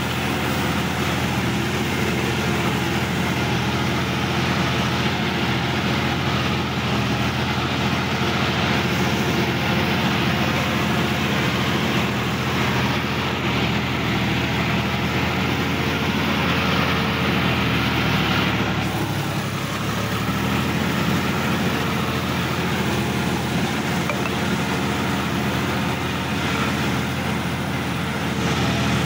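Sonalika DI-50 RX tractor's diesel engine running steadily while the tractor is driven through a muddy field, heard from the driver's seat. About two-thirds of the way through the engine note dips briefly and then picks up again.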